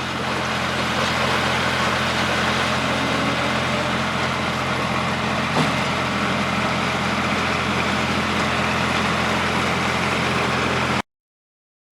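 Tractor engine running steadily while driving a Siromer P10 round baler, with one short click about five and a half seconds in. The sound cuts off abruptly near the end.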